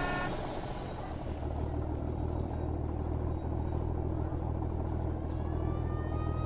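Steady low rumble of motor traffic, with a siren beginning to wail in and slowly rise in pitch near the end.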